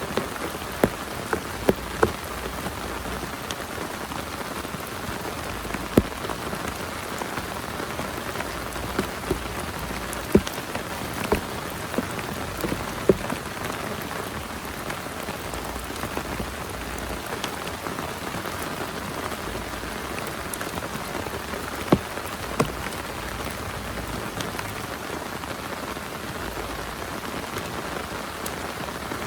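Heavy rain falling steadily, with scattered sharp drop hits standing out above it, most of them in the first half and two more later on.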